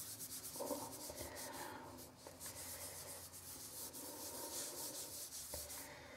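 A soft dry cloth scrubbing back and forth over a paste of toothpaste and baking soda on a porcelain bathtub: faint, quick, repeated rubbing strokes that die away near the end.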